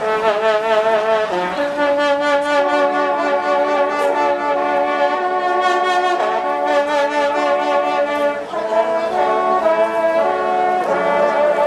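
Brass music: several horns playing held notes together in chords, changing notes every second or so, with a wavering vibrato on some of them.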